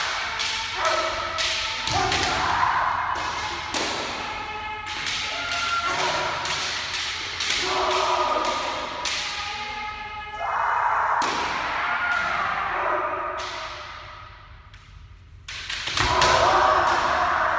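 Kendo sparring: bamboo shinai clacking together and striking armour, feet stamping on the floor, and long shouted kiai cries overlapping from several fencers. After a brief lull, a loud strike and stamp come near the end.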